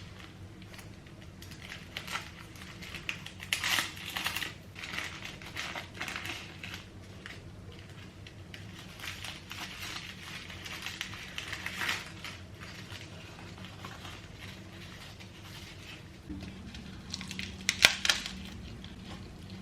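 Plastic film wrapper of a triangle kimbap crinkling and crackling as it is pulled open, with dry nori rustling in it. Near the end come a few sharper, louder crunches of the crispy nori.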